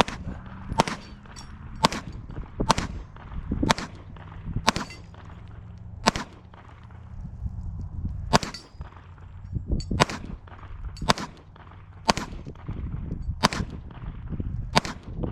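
Springfield Armory Prodigy 9mm pistol firing single shots at an uneven pace of about one a second, about a dozen in all, while it is being sighted in.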